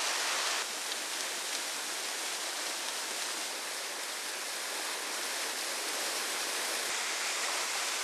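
Small mountain waterfall pouring into a rock pool: a steady, even rush of falling and splashing water, dropping slightly in level about half a second in.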